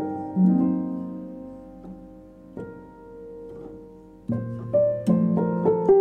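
Instrumental background music of ringing, decaying notes. It thins out and goes quieter in the middle, then picks up again with busier notes about four seconds in.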